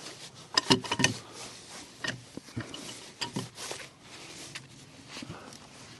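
Scattered light knocks and clicks at irregular intervals, with a few sharper ones in the first half.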